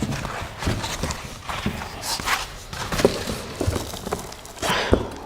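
Packaging being handled as parts are lifted out of a shipping box: irregular rustling and crinkling with several light knocks.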